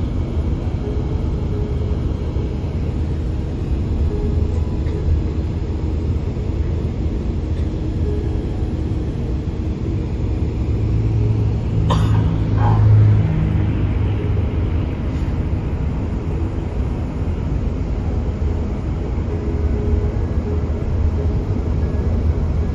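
Steady low rumble of a bus's engine and tyres heard from inside the cabin, with a sharp knock about twelve seconds in and a short swell in the rumble just after.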